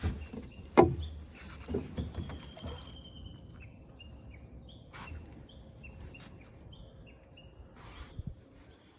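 A few knocks and thumps, the loudest about a second in, with small birds chirping in the background.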